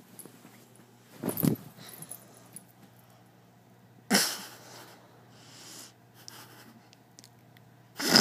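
A person snoring in sleep: three loud snores about three to four seconds apart, the first low and rumbling, the second starting suddenly with a hissing breath, the last near the end.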